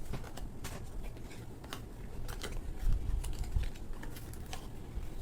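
A cardboard perfume box being opened and handled: scattered light clicks, taps and rustles, with a few dull bumps about three seconds in.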